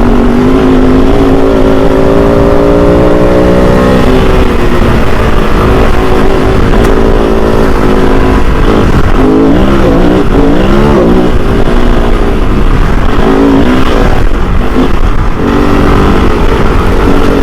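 Kove 450 Rally's single-cylinder four-stroke engine under way: a near-steady drone for the first few seconds, then quick rises and drops in pitch as the throttle is opened and rolled off, mainly about halfway through.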